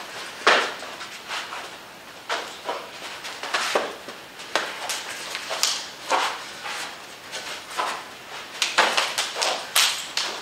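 Hand-to-hand sparring: about a dozen irregular, sharp slaps and thuds as hands and arms strike and block, with shuffling footwork between them.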